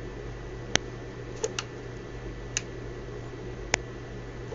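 Five isolated sharp clicks, two of them close together, over a steady low hum.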